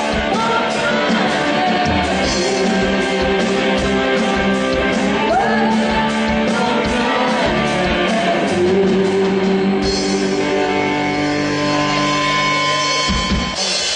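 Live Brazilian worship band: a woman sings a melody into a microphone over guitar and percussion, and the notes are held longer toward the end.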